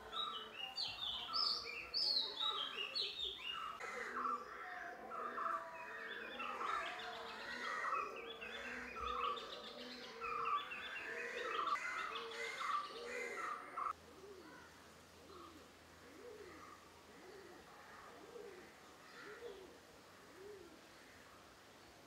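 Several birds chirping and calling together in quick, overlapping trills. About two-thirds of the way through the sound drops abruptly to quieter birdsong, with a short low call repeated evenly under it.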